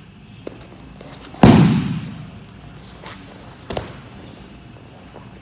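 Bodies landing on foam training mats during a sit-back takedown: one loud thud about a second and a half in, then a smaller thump about two seconds later.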